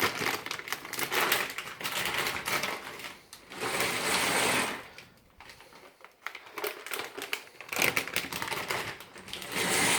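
Dry pasta shaken out of its packet into a saucepan, the hard pieces rattling and clattering in a rapid patter. There are two long pours with a brief pause between them.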